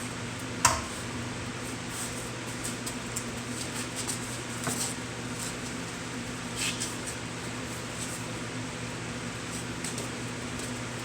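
A stiff brush scrubbing hull cleaner on a boat's bottom, heard as a few scattered short scrapes over a steady low fan-like hum. A sharp knock about a second in is the loudest sound.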